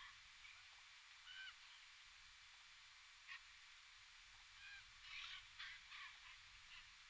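Faint, short calls of ravens and crows: a few scattered single calls, then a cluster of several about five to six seconds in, over a quiet background.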